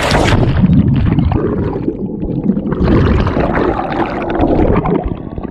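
A person jumping into the sea: a sudden splash as they hit the water, then the rushing, gurgling bubbles of going under, muffled as heard from below the surface.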